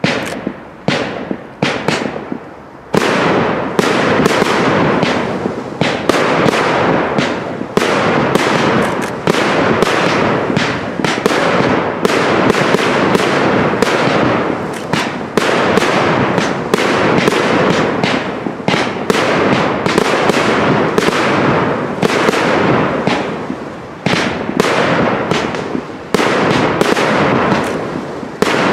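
Professional aerial fireworks display, shells bursting in the sky. A few separate bangs come first, then about three seconds in the reports run together into a dense, continuous barrage.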